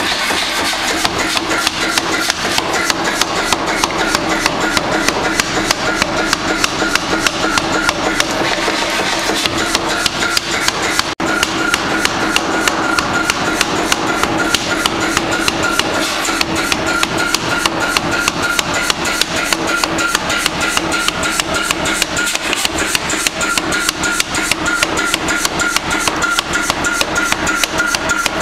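Power hammer forging a red-hot steel billet: a fast, even run of blows, several a second, with a steady hum underneath.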